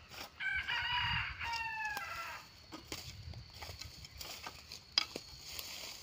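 A rooster crows once, a pitched call of nearly two seconds that falls away at the end. A few light ticks follow, and one sharp knock about five seconds in.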